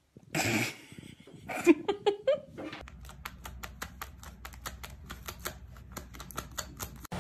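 A short burst of noise and a few brief cries that glide up and down in pitch, then a fast, irregular run of sharp clicks or taps, several a second, over a low hum.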